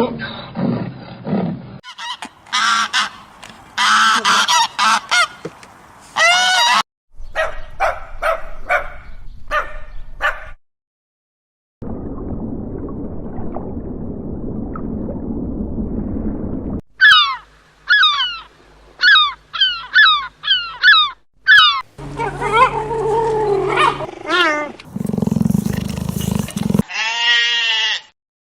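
A string of short animal-call clips cut one after another: honking, squawking bird-like calls, a stretch of steady low rumbling noise, and a run of quick calls that fall in pitch, about two a second.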